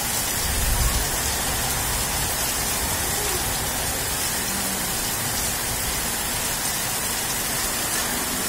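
Heavy rain falling steadily, a dense even hiss of rain on the ground, with a brief low rumble just under a second in.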